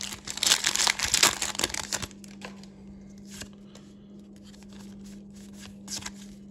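Foil wrapper of a Pokémon Evolving Skies booster pack being torn open and crinkled, loud for about the first two seconds. Then come quieter scattered clicks and rustles of the cards being handled. A steady low hum sits underneath.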